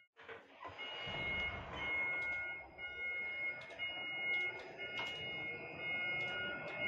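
Overhead steel-mill crane travelling on its rails, heard from inside the cab: a continuous rumble of the wheels and drives with steady high tones over it and scattered clicks. The sound drops out for a moment at the very start, and a lower whine rises near the end.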